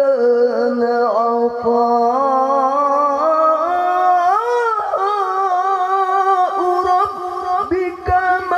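Male Qur'an reciter chanting in the melodic tilawah style through a microphone, holding long ornamented notes with no words between them. The pitch climbs to a higher held note about four seconds in.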